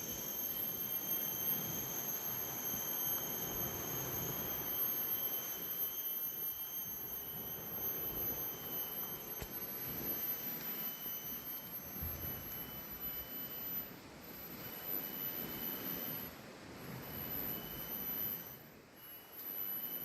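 Cicadas' steady high-pitched whine, which becomes broken with short gaps after about two-thirds of the way in.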